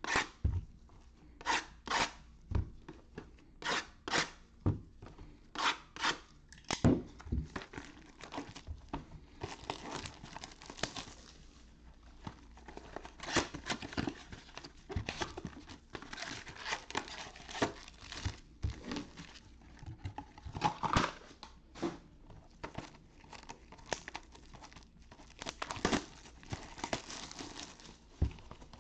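Trading-card packaging being torn open and crinkled: a string of short, sharp rips at first, many in quick pairs, then denser crinkling and rustling.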